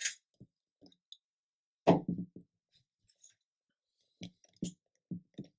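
Small clicks and knocks of plastic model-kit parts and a glass bottle of liquid cement being handled and set down on a cutting mat, with a firmer knock about two seconds in and a quick run of four or five light taps near the end as the bottle is opened.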